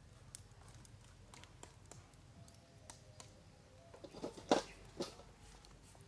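Faint, scattered crackles and pops from a horseshoe crab grilling on a wire rack over charcoal embers, with a short burst of louder pops about four and a half seconds in.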